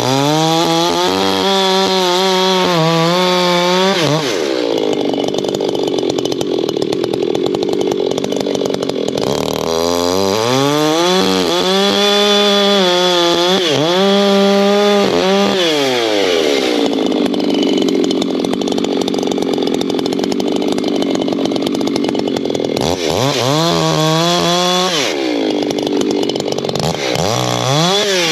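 Echo two-stroke chainsaw bucking oak rounds: it revs up to full throttle for each cut, its pitch dipping and wavering under load, then drops back to idle between cuts, about four times.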